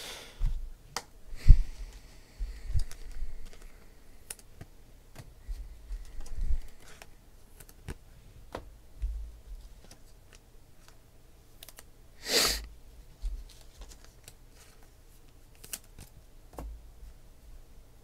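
Scattered light clicks and taps with a few soft knocks, and one short louder rustle about twelve seconds in.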